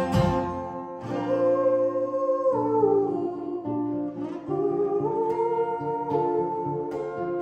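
Live band playing an instrumental passage: acoustic guitar under a held lead melody that slides down in pitch about two and a half seconds in and climbs back up about two seconds later.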